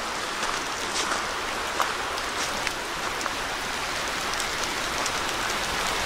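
Steady rush of a creek flowing over rocks, with faint scattered crunching footsteps on the snow-dusted forest floor.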